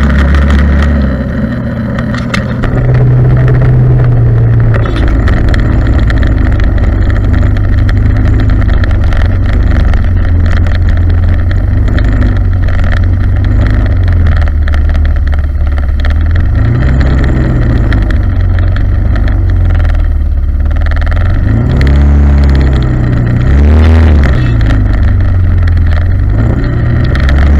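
Yamaha Mio scooter engine, bored up to 135 cc, running under the rider as it creeps through traffic: a steady low hum that rises and falls in pitch with the throttle once past the middle and a few more times near the end.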